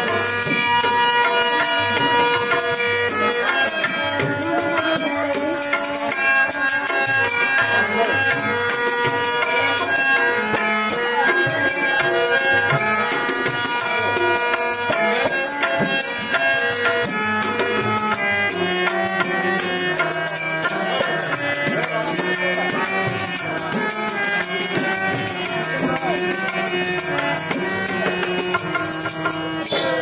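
Live Bengali Bolan folk music played on instruments alone. A harmonium holds steady chords and a two-headed barrel drum (dhol) beats a fast rhythm, with a quick, steady jingling rattle over the top.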